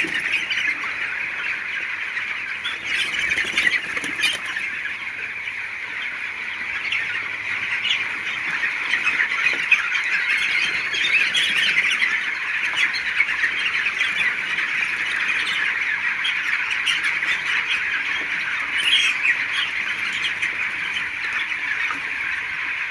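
A large flock of birds calling, many squawking calls overlapping into one continuous, steady chatter.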